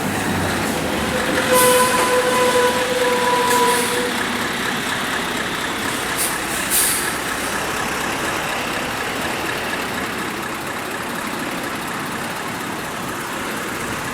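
Heavy double-trailer truck rig running past, a steady rumble of engine and tyres. There are several short, sharp hisses of air in the first seven seconds, and a steady whining tone lasts about two and a half seconds starting about a second in.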